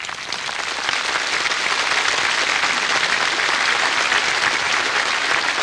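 Large crowd applauding, swelling over the first second and then holding steady.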